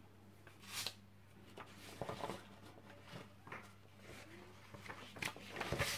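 Faint handling noises: sheets of paper rustling as they are leafed through, with a few light knocks on the tabletop.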